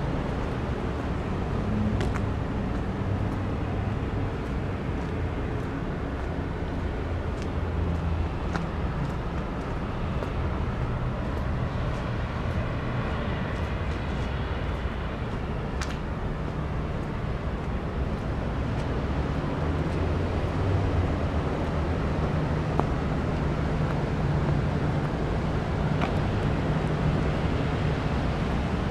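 Street ambience dominated by a steady, low engine drone, with a few faint clicks and a faint high whine that comes and goes around the middle.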